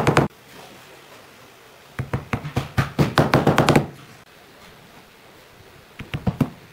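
Small mallet tapping round wooden inlay plugs into drilled holes in a wooden tabletop, in quick runs of sharp knocks. A brief run comes at the start, a longer one about two seconds in, and another near the end.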